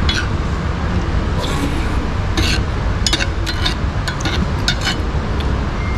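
Metal spoon clinking and scraping against a cast-iron skillet while scooping food, a scatter of short clicks. A steady low rumble runs underneath.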